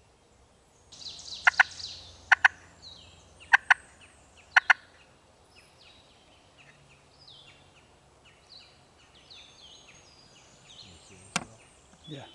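Turkey calling: a short rattling call about a second in, then four sharp doubled clucks spaced about a second apart. Small songbirds chirp faintly after them.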